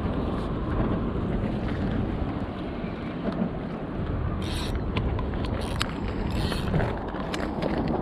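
Steady low rumble of wind buffeting the camera's microphone beside the water, with a few short scratchy rustles and clicks of the spinning reel and rod being handled from about halfway through.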